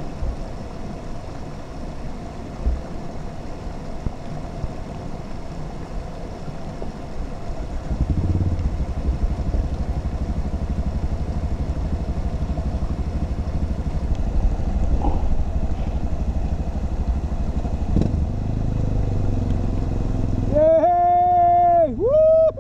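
Dual-sport motorcycle engine running during a creek crossing. It grows louder about eight seconds in, then is revved up and down several times near the end.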